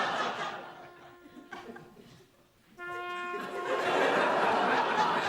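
Studio audience laughter that dies away over the first two seconds. A held musical chord starts suddenly near three seconds in, and a fresh wave of laughter rises over it.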